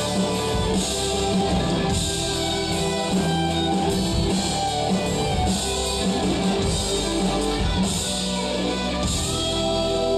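Live band playing amplified music, with electric guitars, drum kit and keyboard.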